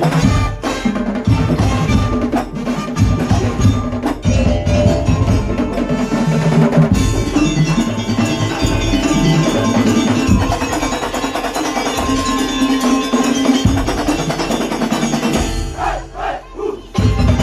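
A Madurese ul daul (tong-tong) percussion ensemble playing loud, dense music on wooden slit drums and drums. The music drops briefly near the end before picking up again.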